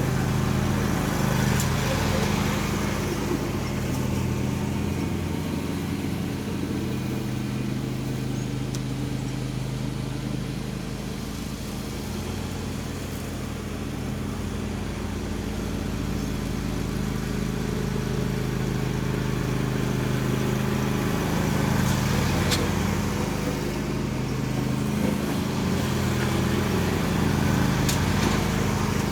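John Deere D130 riding lawn mower running steadily under way with the deck engaged, its level swelling and easing slightly, with a few light ticks.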